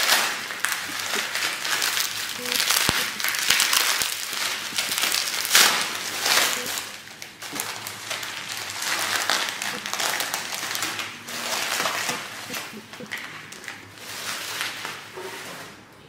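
Bubble wrap and plastic packaging crinkling and rustling as they are handled and pulled open by hand, with dense crackling that is loudest in the first half and dies down near the end.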